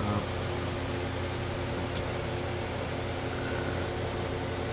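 Steady background hum of a running machine: a low drone with an even hiss over it.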